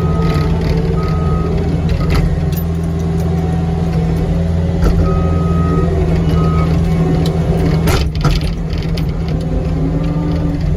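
Cat 259D3 skid steer's diesel engine running steadily while working, with its backup alarm beeping near the start and again around five seconds in. A sharp knock comes about eight seconds in.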